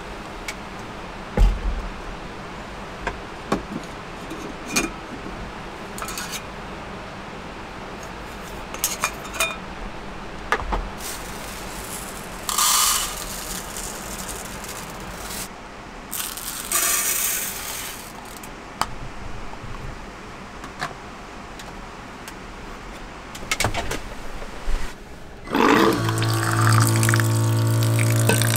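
Steady wash of rain and river water with scattered small clicks and knocks and a couple of brief rustles. Near the end a steady multi-tone hum starts and becomes the loudest sound.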